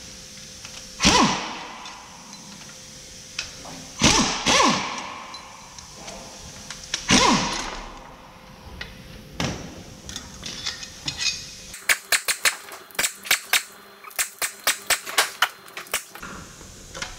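Power wrench undoing bolts on the underside of a diesel engine block: four short loud bursts a few seconds apart, then about four seconds of rapid sharp clicks.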